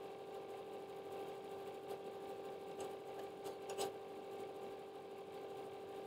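Faint, steady hum of a vintage Russian fan heater's electric fan motor running on its second heat stage, with a couple of faint clicks about three to four seconds in.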